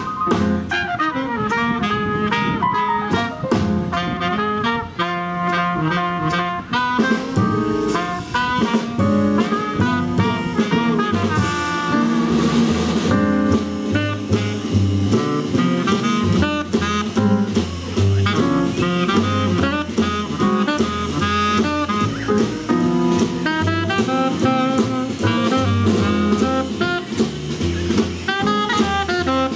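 Live jazz quintet: trumpet and tenor saxophone playing a melody together at first, then the tenor saxophone soloing over piano, upright bass and drum kit.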